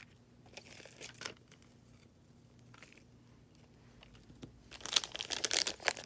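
Paper pieces rustling briefly, then a clear plastic packet crinkling loudly for about a second near the end as it is picked up and handled.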